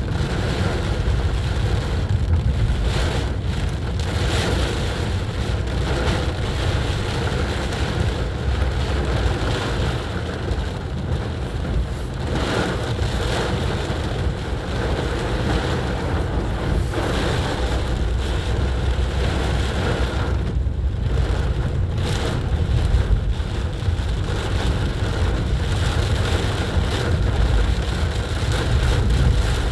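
A car driving through heavy rain: the vehicle's steady low rumble under a continuous hiss of rain, with its tyres splashing through water lying on the road.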